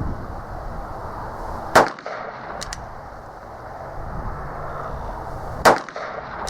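Two shots from an Uberti 1875 Schofield replica revolver firing .45 Long Colt, about four seconds apart, each a sharp crack with a short ringing tail.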